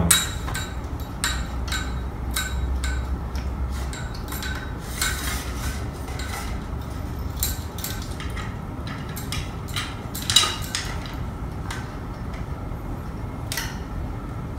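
Metal clicks, clinks and knocks from a tripod speaker stand as its telescoping pole is raised and its height-locking pin and knob are worked. One louder knock comes about ten seconds in.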